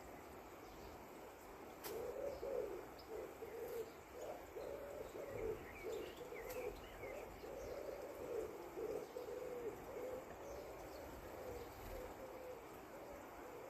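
A bird's low hooting calls, repeated over about ten seconds, with faint higher chirps.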